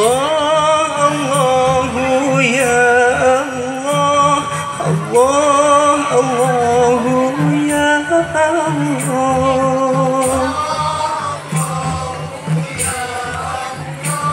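A solo voice sings an Arabic devotional song (shalawat) in long, wavering held notes that slide from one pitch to the next. A marawis group's hand drums strike sparse strokes underneath, about every one to two seconds.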